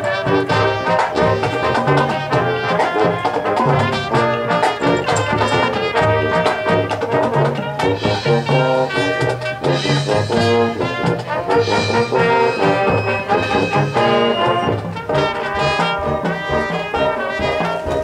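Marching band playing its field show: the brass carry the tune in loud held chords, with percussion hits throughout.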